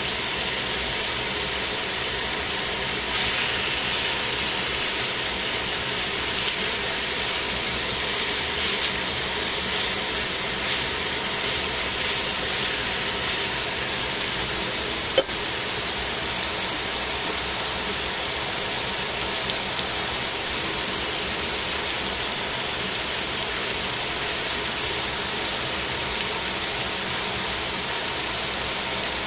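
Chicken pieces sizzling in a stainless steel frying pan: a steady hiss with crackles, busier in the first half. A single sharp click about halfway through.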